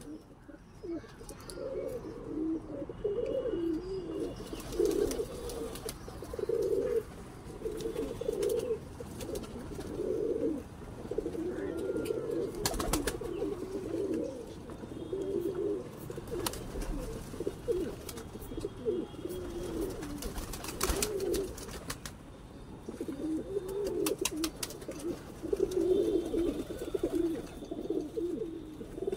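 Domestic pigeons cooing, low warbling coos repeating over and over, with a few sharp clicks in between.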